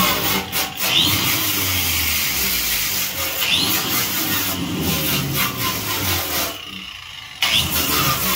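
Makita angle grinder with a wire cup brush spinning against a metal bathtub drain flange, scouring it down to clean metal before epoxy goes on. The motor's whine rises and falls as the brush is pressed and eased, and it briefly drops away about seven seconds in.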